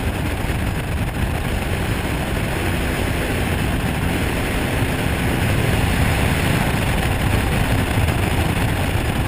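A small aircraft's engine running steadily in flight, heard on board with wind rushing over the microphone.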